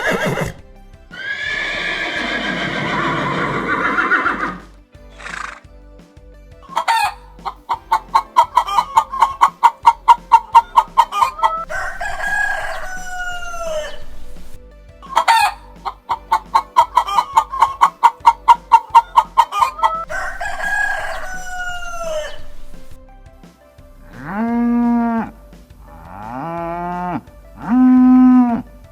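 Chicken calling twice, each time a fast run of sharp clucks that builds up and ends in a long drawn-out call. Near the end, cattle moo four times in short calls. A noisy, breathy sound comes about a second in.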